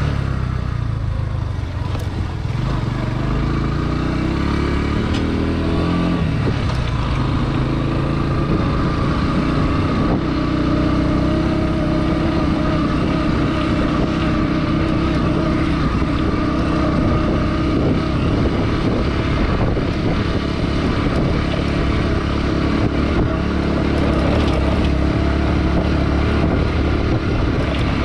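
Motorcycle engine running under way, its note climbing for the first several seconds, dropping back about six seconds in, then holding steady.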